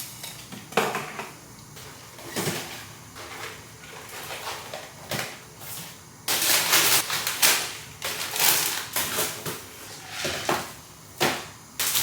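Groceries being handled and put away: an irregular run of knocks, clatters and rustling packaging, with a longer, louder stretch of rustling about six seconds in.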